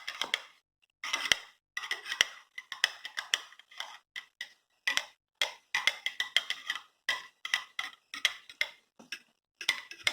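A spoon stirring coffee powder into hot water, clinking rapidly against the cup in quick runs with short pauses.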